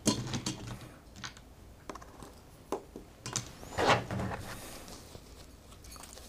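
Light, irregular clicks and taps of playing cards and game tokens being handled and laid on a tabletop as an opening hand is drawn, the loudest knock about four seconds in.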